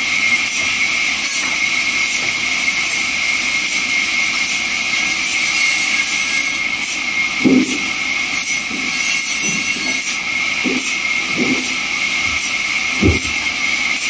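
Large vertical band saw running steadily, its blade cutting through a wooden slab with a continuous high whine and hiss. Several dull knocks of the timber being handled come in the second half.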